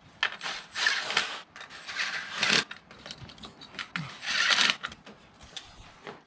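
Three short bursts of rubbing and scraping from hand work, with lighter scuffs between them.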